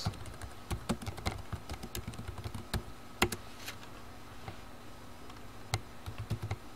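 Computer keyboard typing: a quick run of keystrokes over the first few seconds, followed by a few scattered single clicks.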